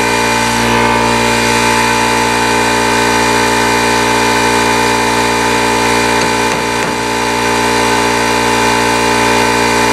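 Quarter-inch air die grinder with a metal cutting wheel running at steady speed as a high, even whine, cutting into a bearing on a Dana 44 differential carrier to crack it off. A low steady hum runs beneath it.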